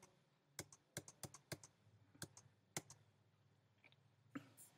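Faint keystrokes on a computer keyboard: about eight separate taps at an irregular pace, as data is keyed into accounting software.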